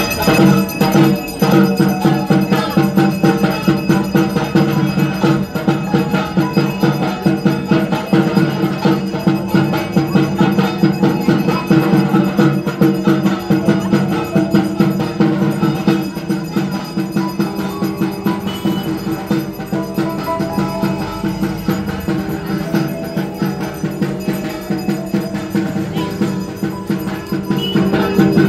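Puja aarti music: bells ringing with fast, continuous percussion strokes over a steady sustained tone.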